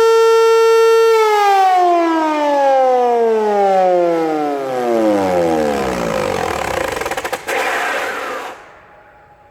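Hörmann HLS 373 high-performance civil-defence siren holding its steady wail. About a second in it winds down, its pitch falling smoothly over several seconds until it dies away shortly before the end.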